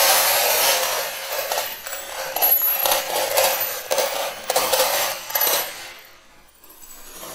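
Loose metal bolts, nuts and washers clinking and clattering irregularly as a pile of them is dumped out and spread about. The clatter dies away about six seconds in, and a steady rushing noise comes back at the end.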